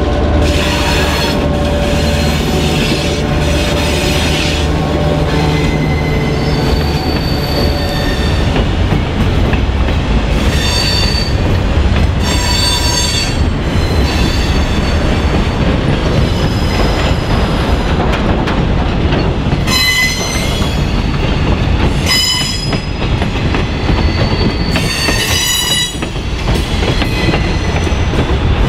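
Freight cars rolling past on a wooden trestle, wheels clicking over the rail joints and squealing in several short high-pitched spells. In the first several seconds the low running of the lead EMD SW8 diesel switchers fades as the locomotives move off.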